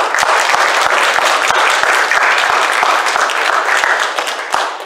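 Congregation applauding in a church sanctuary: many hands clapping together, fading out near the end.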